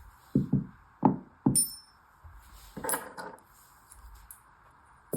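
Metal hand tools being handled and set down: four sharp knocks in the first second and a half, one with a short high metallic ring, then a softer rattle of handling about three seconds in.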